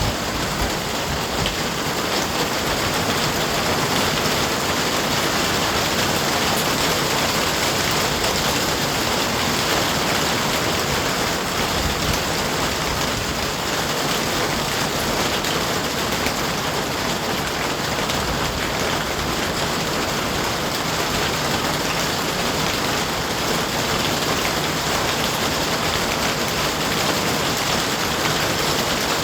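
Rain falling steadily, an even unbroken hiss of drops on surfaces with no letup.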